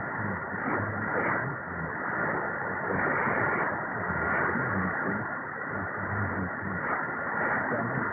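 Weak shortwave AM broadcast on 9629.95 kHz, presumed to be Radio Aparecida, received on a Perseus SDR: a faint, barely readable voice buried in steady hiss and static. The sound is narrow and muffled, with nothing above about 2.5 kHz.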